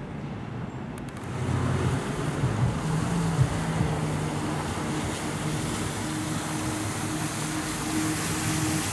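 Vehicle noise swells about a second and a half in and then holds: a steady rushing sound with a low hum, the kind heard from passing traffic.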